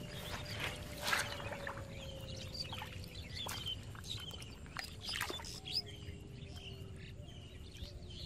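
Bare hands digging and scooping in wet mud and shallow water, giving wet squelches and splashes, loudest about a second in and again around five seconds. Small birds chirp repeatedly in the background.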